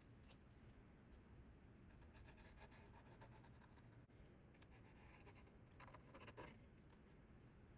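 Faint scratching and rubbing strokes over a low steady hum, strongest about two seconds in and again about six seconds in.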